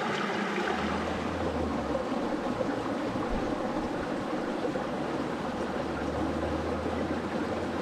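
Water of a stream running steadily, with a low rumble coming and going underneath.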